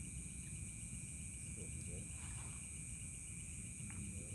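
Crickets and other night insects chirring steadily, one with a rapid pulsing trill, over a low steady rumble. Faint voices come in briefly about two seconds in.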